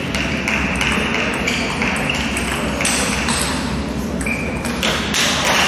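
Celluloid-style table tennis balls clicking and pinging at irregular intervals off bats and tables around the hall, over a steady hall din.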